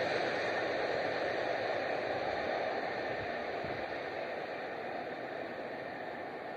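Rumble of a train on the track, a steady noise slowly fading as it moves away from the crossing.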